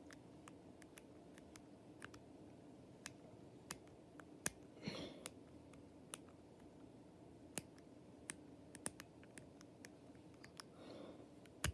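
Faint, irregular clicks of a TSA combination suitcase lock's number wheels being turned a detent at a time while the lock is held under tension to feel for the binding wheel, with a soft rustle about five seconds in.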